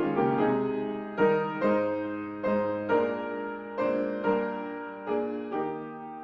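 Slow, gentle piano music: soft chords and single notes struck one after another, each ringing and fading.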